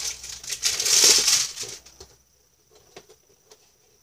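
Cardboard and paper packaging rustling and crinkling as it is handled and pulled open, loudest about a second in and fading out before the two-second mark, then a few light clicks.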